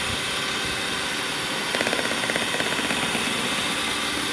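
Electric hand mixer running steadily, its beaters whipping stiff cream with melted chocolate in a bowl. A fast rattle joins the motor's whir about two seconds in.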